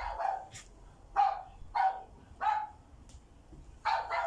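A dog's short barks in a series of five or six, spaced roughly half a second to a second apart.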